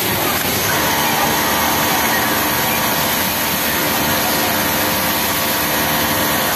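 Industrial flatlock sewing machine stitching a T-shirt hem at high speed. It comes up to speed about a second in and then runs with a steady hum at an even pitch.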